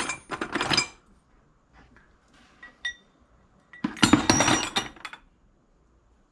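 Scrap brass pieces clattering and clinking against one another and against the bucket as they are sorted. A clatter dies away about a second in, a few light clicks follow, and a second clatter comes around four seconds in.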